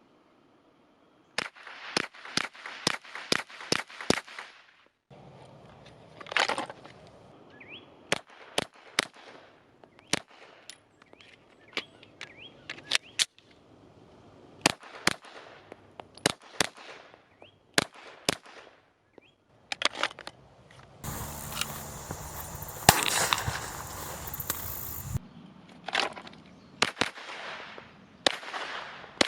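Glock 17L 9mm pistol firing: quick strings of shots at about three a second, then spaced single shots and pairs. About two-thirds of the way through there are a few seconds of loud, even rushing noise with shots inside it.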